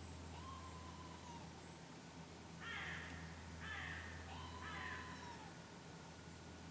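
Animal calls: three harsh, hoarse calls about a second apart, with thinner gliding, whining calls before and between them.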